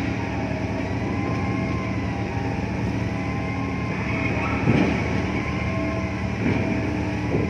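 Steady low drone of a ship's engine, with several held tones and a faint whine that rises and falls. A short thump about halfway through, the loudest moment, and a lighter knock or two near the end.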